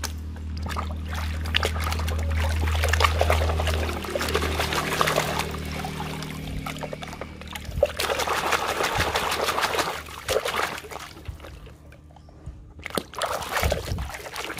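Water splashing and sloshing in a metal basin as a hand scrubs a plastic toy crocodile in it, with a quieter pause near the end before the splashing starts again. A low steady hum sits under the first few seconds.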